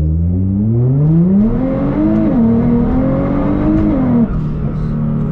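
Nissan GT-R R35's twin-turbo V6 under full throttle in straight gears, heard from inside the cabin: the engine note climbs, dips with a quick upshift about two seconds in, climbs again, then falls away as the throttle is lifted about four seconds in.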